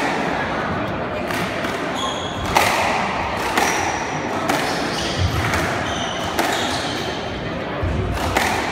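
Squash doubles rally: the ball cracking off rackets and thudding against the walls, a sharp hit every half-second to second, with several short squeaks of court shoes on the wooden floor and a couple of heavier thuds.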